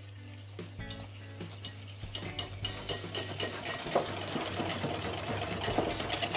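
Wire hand whisk beating melted chocolate, cream and egg yolks in a glass bowl, its wires scraping and clicking against the bowl in quick strokes of about five a second. The sound is soft at first and grows louder from about two seconds in.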